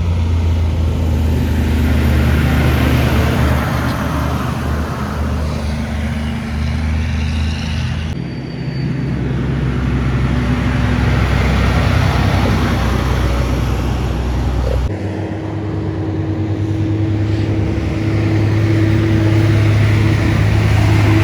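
Heavy trucks driving past on a highway: a deep diesel engine drone with tyre and road noise that swells and fades as each one passes. The sound changes abruptly twice, as from one passing truck to the next.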